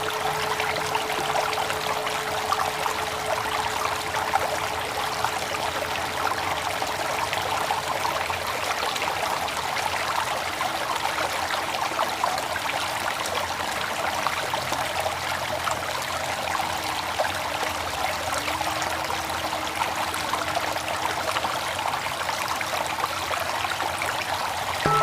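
Steady flowing water, a continuous even rushing trickle.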